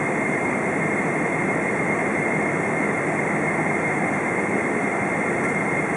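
Steady cabin noise inside a Boeing 777-200 taxiing after landing: the engines at idle and the airflow make an even rush with a thin, steady high whine through it.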